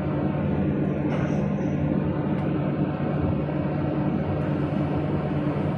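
Excavator's diesel engine running steadily with a constant low hum, heard from inside the operator's cab.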